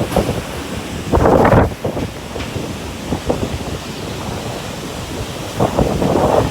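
Typhoon wind buffeting the microphone in gusts, with a louder surge about a second in and another near the end.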